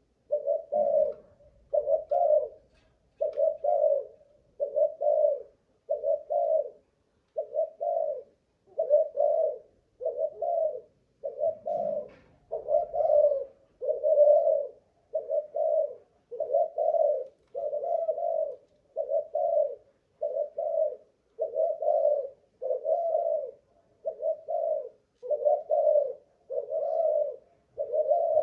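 Malaysian-line spotted dove cooing over and over, about one phrase a second without a break: a long, steady cooing run that shows the bird's stamina.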